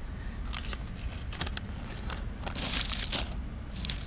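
Crumpled paper and plastic wrapping crinkling as hands open a bundle of jewelry, in irregular crackles that thicken about two and a half seconds in.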